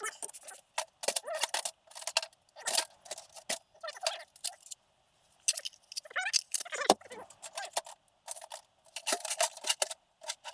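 Small metal engine parts and tools clinking and rattling against each other as they are handled, in irregular sharp clinks with a short pause about halfway through.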